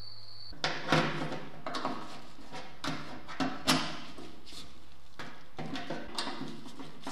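Irregular light metallic clicks and taps from a hand screwdriver driving screws into a small steel hinge on a smoker's sheet-steel lid, each click ringing briefly.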